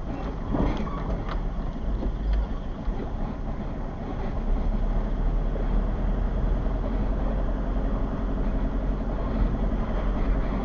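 A car driving along a street, heard from inside the car: steady engine and tyre rumble, with a few short knocks in the first second or so.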